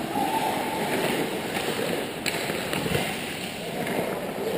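Hockey skates scraping and carving the rink ice in a steady hiss, with two sharp knocks a little after two seconds in, from sticks or the puck.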